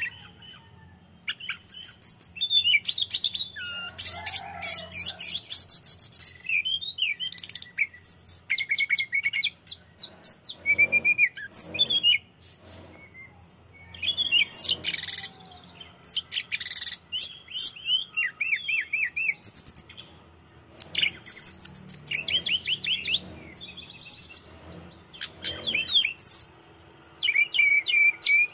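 Hill blue flycatcher (tledekan gunung) singing: long runs of varied, rapid warbling phrases and high trills, broken by short pauses.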